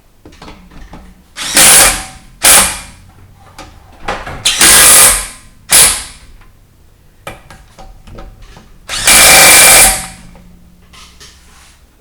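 Impact wrench running lug bolts into a wheel hub in five short bursts, the longest about a second, with light clatter between.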